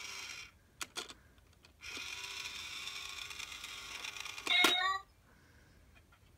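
Small motor in a cat-paw coin bank toy whirring as its lid opens and shuts, with two sharp clicks about a second in and a longer steady whir after that. Near the end comes one short, loud meow.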